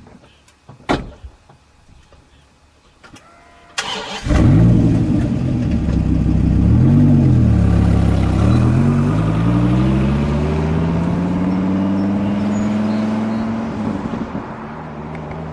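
A few sharp clicks, then about four seconds in the 1967 AMC Rambler Rebel drag car's 390 cubic-inch V8 is cranked and fires up. It is blipped twice, then runs with its revs climbing slowly before easing off near the end.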